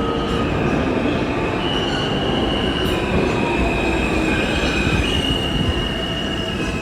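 New York City subway train running, with a loud rumble of wheels on rails and a high, steady wheel squeal that shifts pitch in steps.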